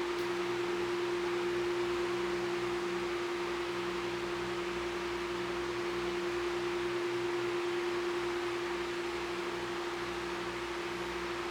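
Galaxy 16-inch oscillating table fan running: a steady motor hum under an even rush of air from the blades.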